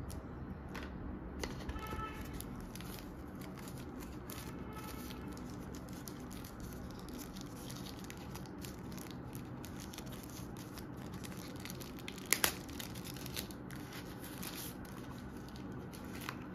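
Crinkling and rustling of the wrapping as it is peeled off a small gimbal tripod, with a sharper click about twelve seconds in.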